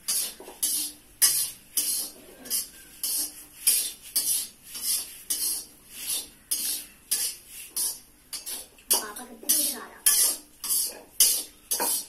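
Metal ladle scraping around the inside of a wok as food is stirred, in quick, even strokes of about two a second.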